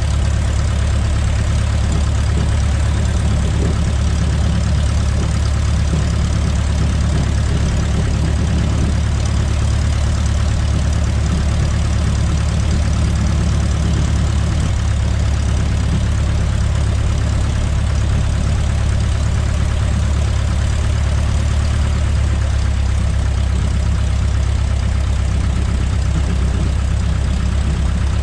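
A Cub light aircraft's piston engine and propeller running steadily at idle while the plane taxis, heard from inside the cockpit.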